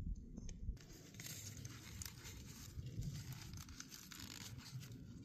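Soft rustling and scraping of hands folding and rolling a loaded flour tortilla on a paper plate, over a steady low rumble of wind on the microphone.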